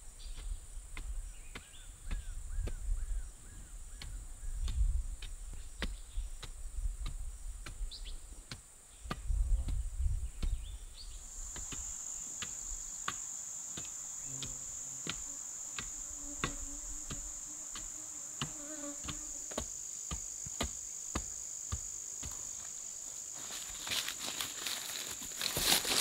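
A steady, high buzz of insects that gets louder about halfway through, with scattered light knocks and taps and a louder burst of knocks near the end.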